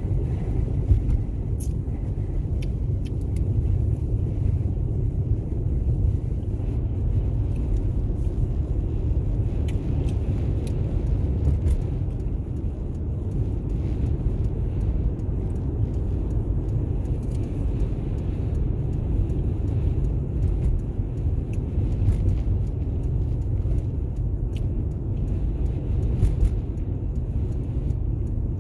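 Steady low rumble of a car being driven at highway speed, heard from inside the cabin, with a few faint clicks.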